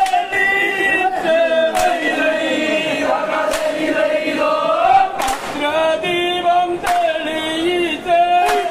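A group of men singing a Malayalam vanchipattu (traditional Kerala boat song) together in long, gliding held notes, with a sharp hand clap keeping time about every second and a half.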